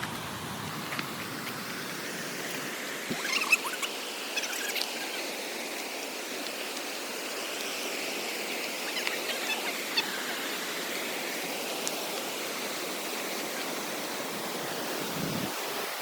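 Steady rush of flowing water, like a stream or small mountain river, with a few short clicks and chirps at about three to five seconds in and again near ten seconds.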